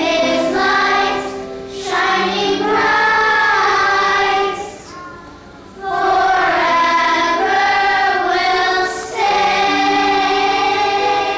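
Children's choir singing held, sustained phrases, with a short break about five seconds in.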